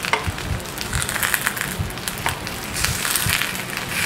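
Banana-leaf-wrapped sticky rice rolls sizzling and crackling in a little oil on a non-stick grill pan, with metal tongs knocking and shuffling the rolls as they are turned.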